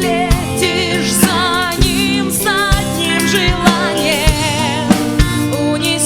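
A woman singing with vibrato over a pop backing track with a steady drum beat.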